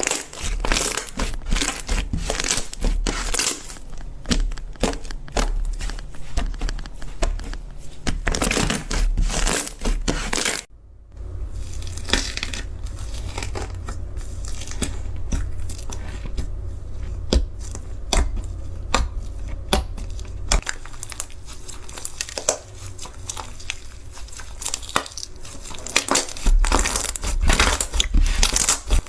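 Slime being squeezed and worked by hand, making a dense run of crackling, crinkling clicks and pops, with a brief pause about eleven seconds in.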